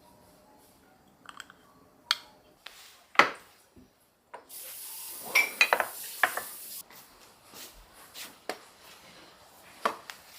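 Kitchen handling sounds: dishes and utensils knocking and clinking, the loudest knock about three seconds in, with a steady hiss for about two seconds in the middle while several clinks sound over it.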